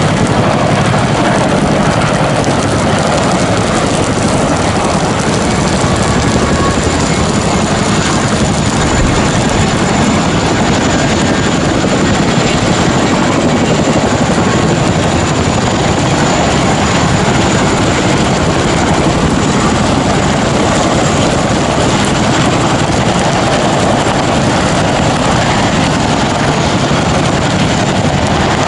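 Helicopters flying overhead, a steady, loud rotor and engine noise that does not rise or fade.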